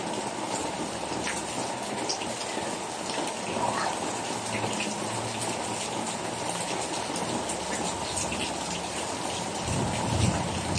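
Steady rain falling, with individual drops ticking close by.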